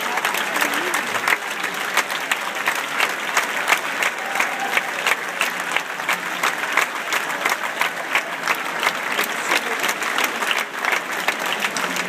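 Audience applause: many hands clapping in a dense, steady stream.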